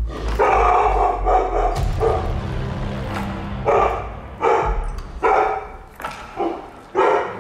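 Golden retriever barking: a quick burst of barks, then single barks about once a second. It is alarm barking at a masked stranger at the glass door.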